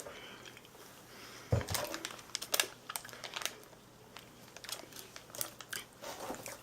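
Plastic snack bag of bean and rice chips crinkling as it is handled, with irregular sharp crackles, the loudest about one and a half to three and a half seconds in.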